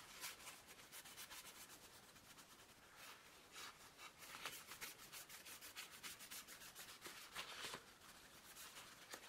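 Paper kitchen towel rubbing over a small glass display pane: a faint, uneven run of scratchy wiping strokes, a few of them louder.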